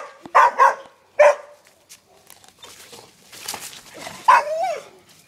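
Dogs barking in a fight: four sharp barks in the first second and a half, then a longer yelping bark near the end that rises and falls in pitch.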